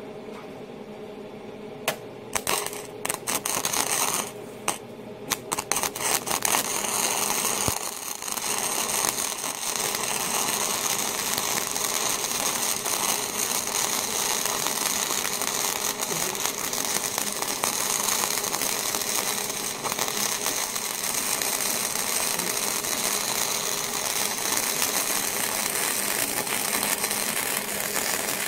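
Hobart Handler 120 wire-feed welder running flux-core wire: a few short stop-start bursts of arc crackle in the first seconds, then a long, steady crackling weld bead.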